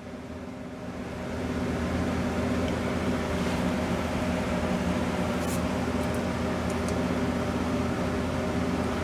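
A steady machine hum from a running motor, swelling about a second in and then holding level, with a few faint light clicks.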